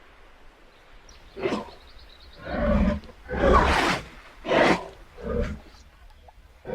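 Hippopotamus calling: a run of about five deep grunts starting about a second and a half in, the loudest near the middle and the last ones shorter.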